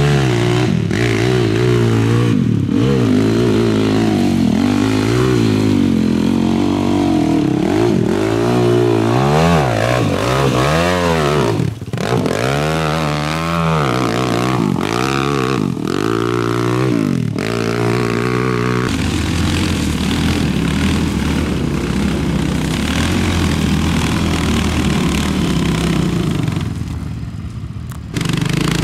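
Racing ATV engines revving up and down again and again, the pitch rising and falling with the throttle, then settling into a steadier engine drone about two-thirds of the way through.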